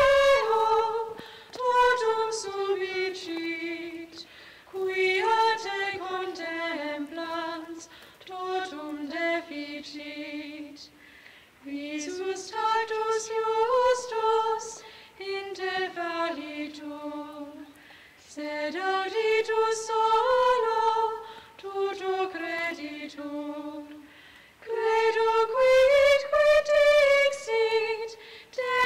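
A single unaccompanied high voice singing a slow melody in phrases, with short pauses for breath between them.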